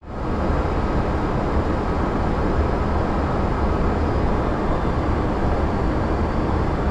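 Steady cockpit noise of an Airbus A330 on final approach: a rush of air and engine noise with a low drone underneath. It fades in quickly at the start, then holds even.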